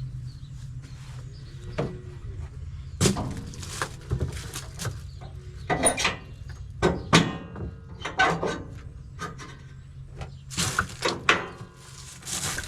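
Irregular metal clanks, knocks and rattles of a gooseneck trailer being hooked to a pickup truck, with its safety chains being hooked up; a few of the clanks ring briefly. A steady low hum runs underneath.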